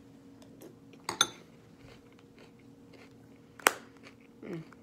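A quiet room with a few small clicks and taps, the sharpest a single click about three and a half seconds in.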